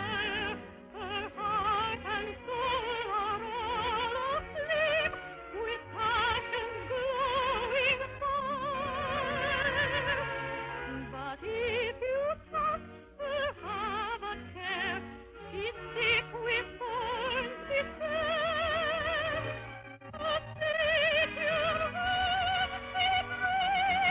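Operetta singing with strong vibrato over orchestral accompaniment, a musical number from an old radio broadcast recording.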